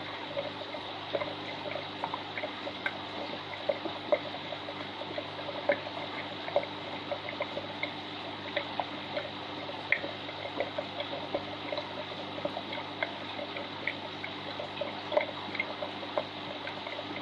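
Aquarium water trickling and dripping, with many small irregular plinks and splashes over a steady low hum.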